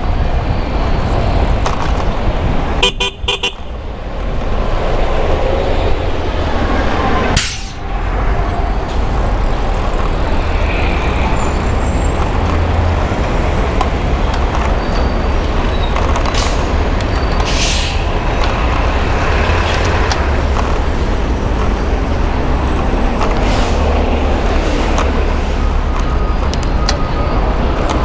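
Steady wind and road noise from a bicycle riding in city traffic. A car-type horn honks briefly about three seconds in, and a short sharp noise comes a little past seven seconds.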